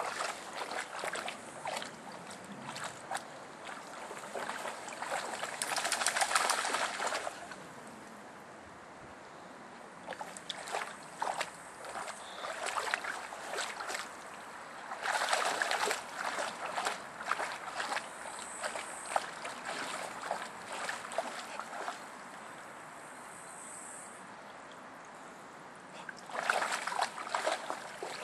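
A dog splashing as it wades and paddles in a stream, in irregular bursts of splashes with quieter gaps between.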